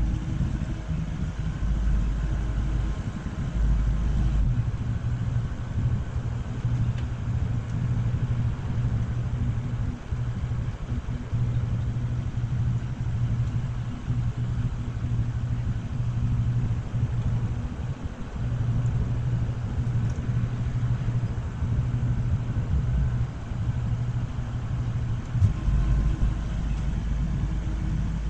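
An engine running steadily, a low rumble with a constant hum.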